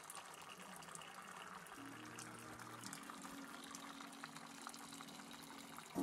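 Faint pattering of many water drips falling from a mossy rock overhang into a still pool, a dense scatter of small splashes.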